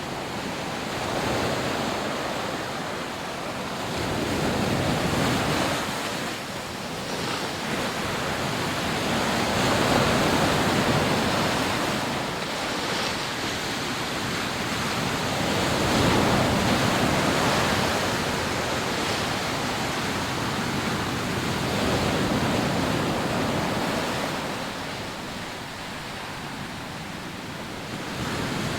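Rough sea waves breaking on a sandy beach: a continuous wash of surf that swells and fades every five or six seconds as each wave comes in.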